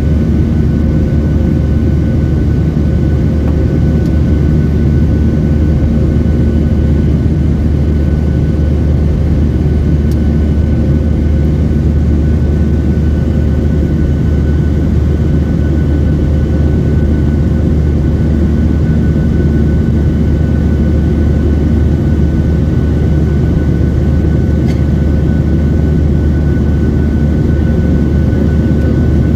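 Steady cabin drone of a Boeing 737-800 airliner in flight: a loud, even low rumble of the jet engines and rushing air. A faint steady hum runs underneath, with no change throughout.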